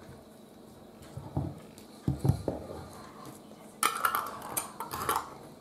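Metal screw-top lids being put on glass jars of pickles and the filled jars handled on a wooden board: a few dull knocks, then a brighter metallic clatter about four seconds in.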